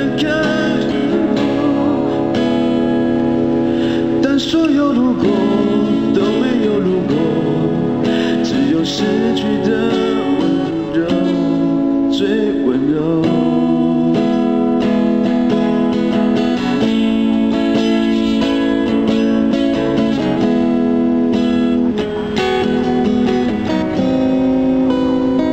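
Acoustic guitar played steadily in a song, with a male voice singing along in places.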